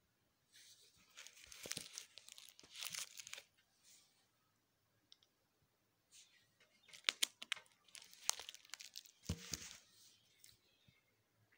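Crinkling and rustling of a photo album's plastic page sleeves being handled, in two bouts, the second with sharper crackles.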